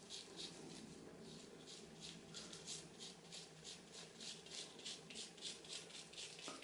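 Faint, rhythmic rubbing and squishing of hair dye being worked through wet hair, about four strokes a second.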